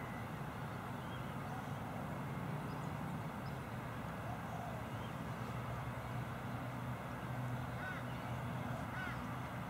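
Outdoor background: a steady low hum with faint, short bird chirps now and then, a few of them close together near the end.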